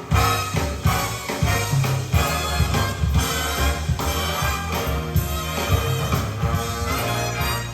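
Instrumental music with a steady beat, played through a restored Pioneer CT-43 cassette deck.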